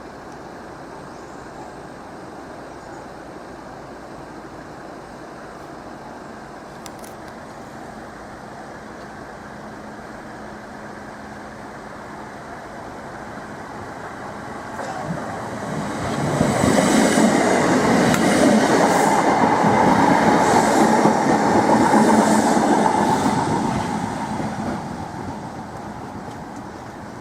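Southern Class 313 electric multiple unit passing over the level crossing: it builds up from a distance, is loudest for several seconds with a hum from its running gear and wheels clattering over the rail joints, then fades away.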